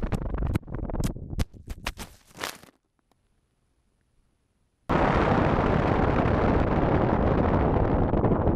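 Foam RC plane with a GoPro on board hitting the ground: a run of sharp knocks and clattering impacts over the first two and a half seconds, fading out as it comes to rest. Near silence for about two seconds, then loud wind rush over the plane-mounted camera in flight starts abruptly.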